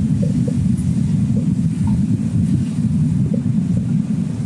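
A steady low rumble fills the background, with a few faint light taps as a wooden spatula stirs chicken and tomato in a stainless steel frying pan.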